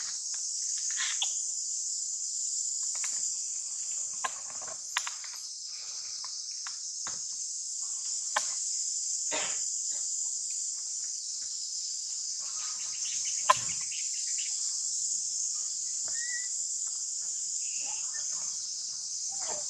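Steady high-pitched insect chorus, with scattered short clicks and taps over it; the sharpest click comes about two-thirds of the way through.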